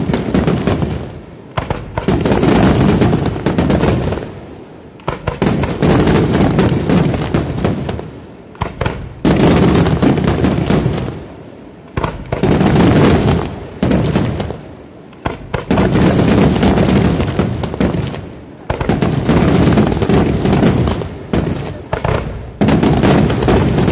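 Aerial fireworks display: volleys of shells bursting in rapid, dense strings of loud reports. The volleys come in waves about every three seconds, each starting suddenly and fading away before the next.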